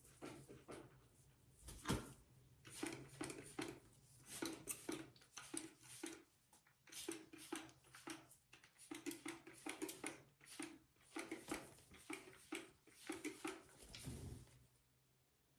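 Amazon parrot moving about during a bath: a quick, irregular run of taps and patters, with one louder thump about two seconds in.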